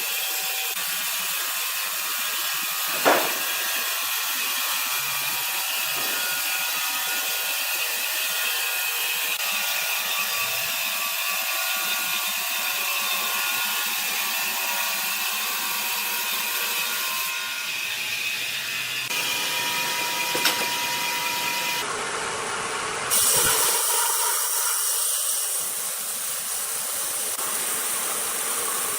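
Sawmill saw cutting wood: a steady, hissing noise, with one sharp knock about three seconds in. Past the middle the sound changes abruptly a few times and grows louder.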